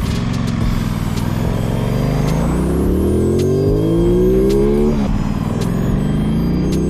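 Aprilia Tuono V4's V4 engine through a Leo Vince aftermarket exhaust, accelerating: the note holds steady, then climbs in pitch, drops sharply about five seconds in, and climbs again.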